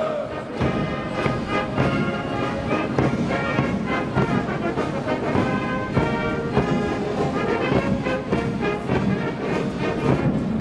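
Military brass band playing a march outdoors, with a regular drum beat under the brass.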